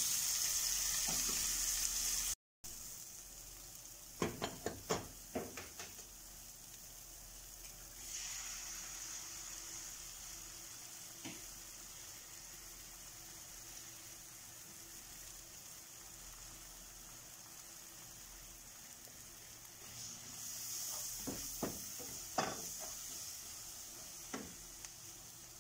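Chopped onion, garlic and tomato sizzling in a nonstick frying pan, the sizzle swelling about eight seconds in and again near the end. Bursts of sharp spatula clicks and scrapes against the pan come a few seconds in and again near the end.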